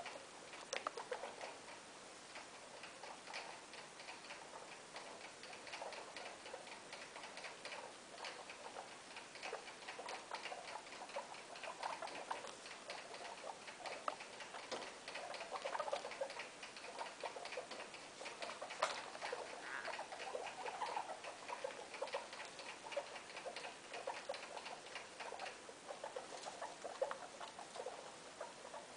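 A guinea pig mother and her three young pups scurrying and foraging through scattered hay on carpet: a steady run of small clicks, ticks and rustles.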